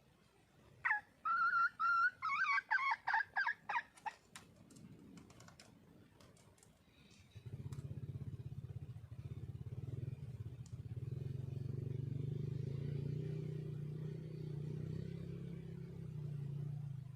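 Wild junglefowl hen calling: a drawn-out first note followed by a quick run of about a dozen clucking notes, over about three seconds. About halfway through, a low, steady motor hum starts and runs on.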